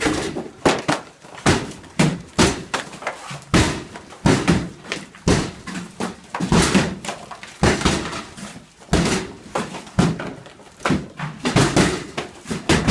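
Demolition work: a rapid, irregular series of heavy thuds and bangs, roughly two blows a second, as walls and fittings are struck and broken.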